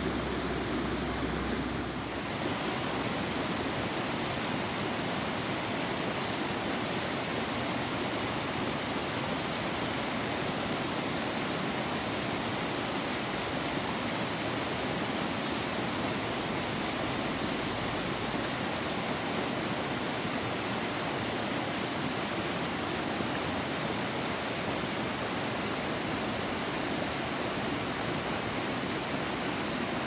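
Steady rush of a small mountain creek tumbling over rocks in shallow cascades.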